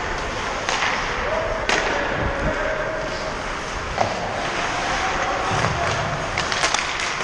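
Ice hockey play: skate blades scraping across the ice, with sharp clacks of sticks and puck, one under two seconds in, one about four seconds in and a quick few near the end, under players' voices calling out.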